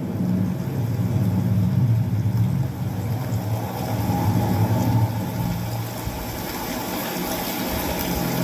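Sony SRS-XB100 portable Bluetooth speaker playing music with heavy bass, in a sound test.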